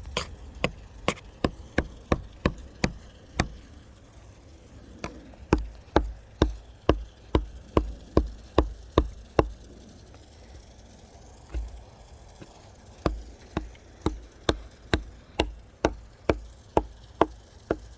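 A screwdriver repeatedly striking and jabbing into a block of wood, sharp knocks about two or three a second in three runs with short pauses between them.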